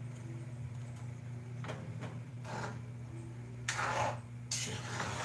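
Metal ladle scraping and stirring food in a wok in several short strokes, the loudest two near the end, over a steady low hum.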